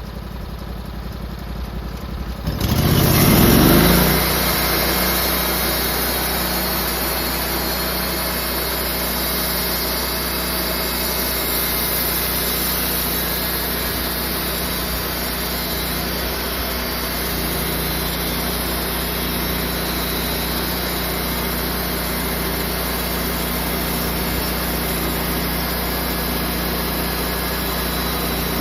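Sawmill's small gas engine idling, then revving up about two and a half seconds in and running steadily under load as the blade cuts a slab through a burled cherry log.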